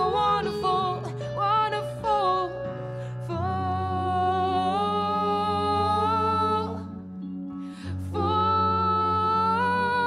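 Live pop band music: a woman's voice singing long, held wordless notes, a second long note starting about eight seconds in, over sustained electric guitar and keyboard accompaniment.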